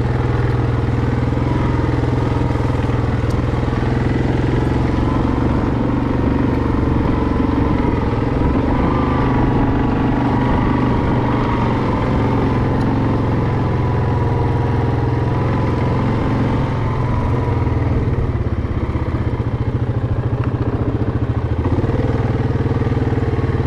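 Engine of an off-road trail vehicle running steadily at an even speed.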